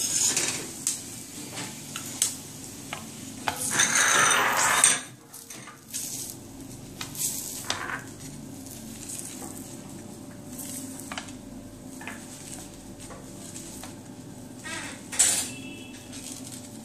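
Steel spatula scraping and clinking against a flat iron tawa and a plate as a cooked paratha is lifted off the griddle and set down. About four seconds in there is a loud rushing noise for a second or so that cuts off sharply, then scattered light clicks.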